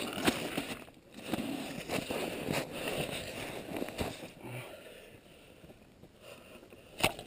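Soft sloshing and rustling as bare hands reach into an ice-fishing hole and handle the line and water, with scattered small clicks and a couple of sharper knocks near the end.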